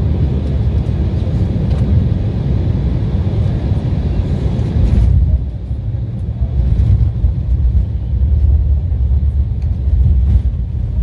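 Airliner cabin noise during the landing rollout: a loud, steady low rumble from the runway and engines, with a higher rushing noise over it that drops away sharply about five seconds in, leaving the rumble.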